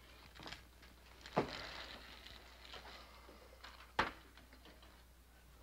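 Faint handling sounds: a light knock about a second and a half in with a short rustle after it, and a sharp click about four seconds in.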